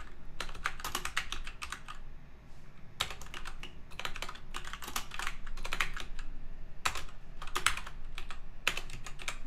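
Typing on a computer keyboard: quick runs of keystroke clicks broken by short pauses, the longest about two seconds in.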